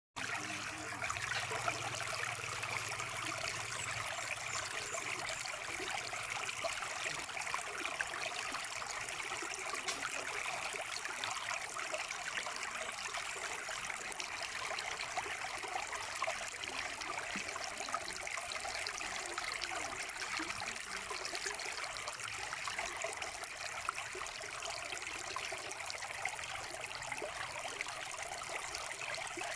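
Mountain river flowing over rocks: a steady rush of water with fine splashing and trickling.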